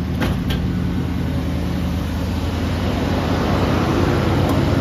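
Chevrolet 350 small-block V8 idling steadily, with two light clicks about a quarter and a half second in.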